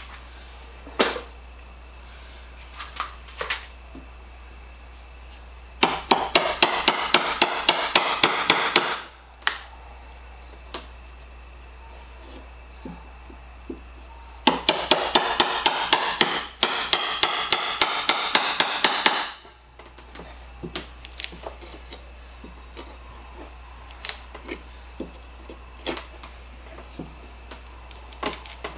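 Hammer tapping the end of a handle-less screwdriver that is used as a pry bar, driving it under a nailed wooden band on an old tool box. There are two runs of quick strikes, about four or five a second: one about six seconds in that lasts three seconds, and one about fifteen seconds in that lasts four to five seconds. Lighter knocks and clicks come in between.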